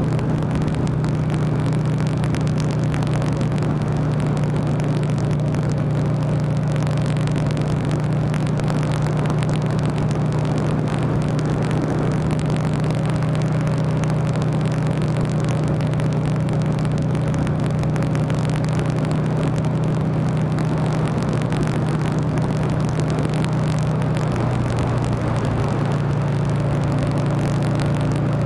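Buell XB9SX's air-cooled V-twin engine running steadily at road cruising speed, over a constant rush of riding noise. The engine note dips slightly near the end, then picks back up.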